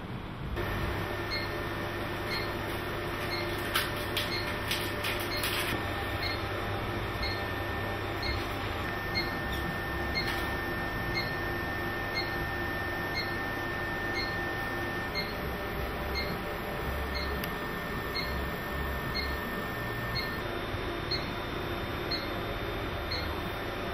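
Short electronic beep from operating-theatre equipment, repeating evenly about once a second over a steady hum of room machinery, with a few sharp clicks about four to six seconds in.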